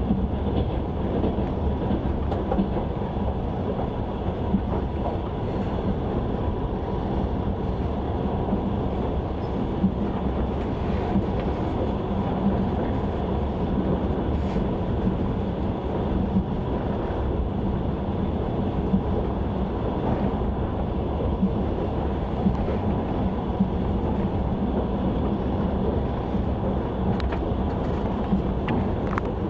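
Passenger train running at speed, heard from aboard a carriage: a steady rumble of wheels on the rails with a faint steady hum and a few light knocks scattered through it.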